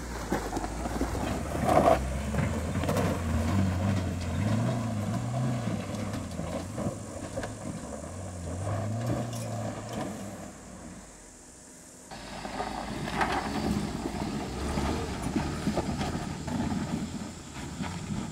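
A small 4WD SUV's engine working on an off-road track, its revs rising and falling over and over. It goes quieter briefly a little after ten seconds in, then comes back suddenly.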